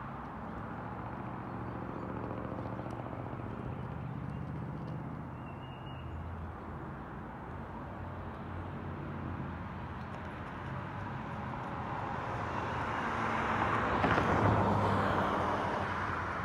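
Engine drone of an unseen vehicle, low and steady at first, swelling to its loudest near the end and then easing off, as if passing by.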